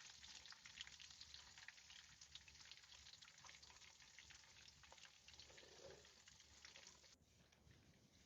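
Food sizzling and spitting in a pan, a fine continuous crackle that drops away suddenly about seven seconds in.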